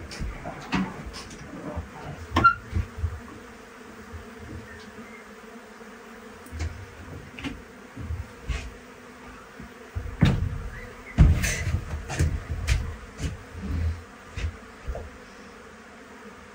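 Honey bees buzzing steadily around the hives, a continuous hum, with scattered clicks and low thumps over it.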